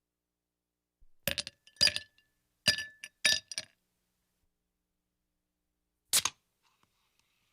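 Ice cubes dropped into a glass: a quick run of clinks over about two and a half seconds, the glass ringing briefly after the hits. About six seconds in, a soda can's tab is cracked open with one sharp pop, followed by a faint fizz.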